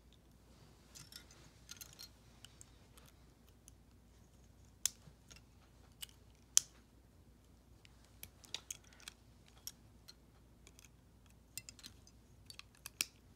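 Scattered sharp clicks of small hard plastic LEGO Bionicle parts being handled and snapped together, a few louder ones in the middle and more in the second half.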